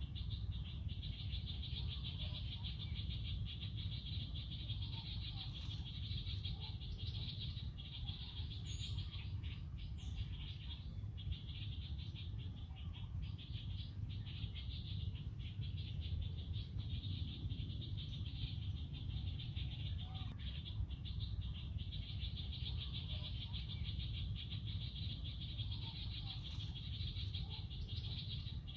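Forest ambience: a steady high-pitched chorus, with a low rumble beneath and a few short bird chirps.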